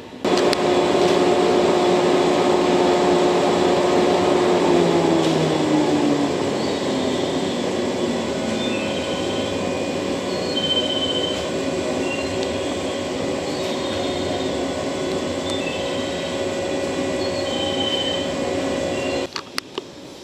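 Close sound of a JR West 113-series electric train: a steady hum with a whine that falls in pitch about five seconds in, and short high squeals recurring from about seven seconds in. It starts and cuts off abruptly.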